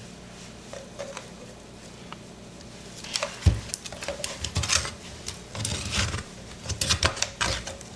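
A metal spoon scraping the soft meat out of the inside of a young coconut shell: an irregular run of scrapes and knocks starting about three seconds in, with one dull thump among them.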